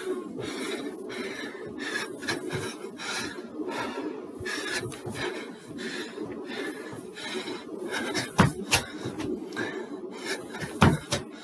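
Continuous rubbing and rustling noise with many small clicks, broken by a few sharp knocks about eight and a half seconds in and again near eleven seconds.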